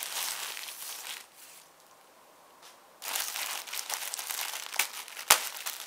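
Paper wrapping of a parcel crinkling as it is handled and unwrapped. There is a quieter lull of about two seconds a second in, then more crinkling and a sharp snap near the end.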